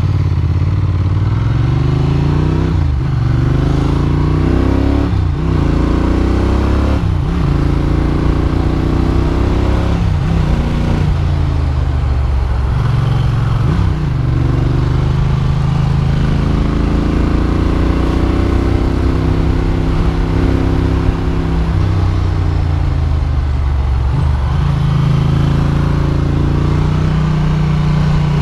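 A Ducati Monster's V-twin engine, heard from the rider's seat while under way. In the first ten seconds or so the engine note climbs and drops off quickly four times as the rider accelerates through the gears. After that it rises and falls with the throttle through the bends.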